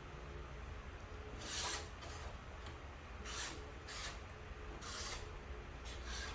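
About five short rasping, rubbing strokes at irregular intervals over a steady low hum.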